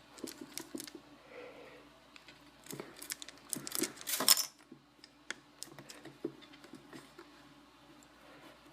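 Irregular clicks, taps and short scrapes as a small boxed Apple mouse is handled and a makeshift tool is worked at its sealed box, with a louder burst of scraping about four seconds in.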